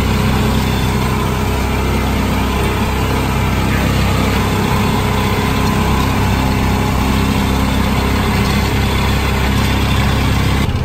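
Small engine of an amusement-park ride car running steadily at full throttle, a lawnmower-like drone as the car moves slowly along its guided track.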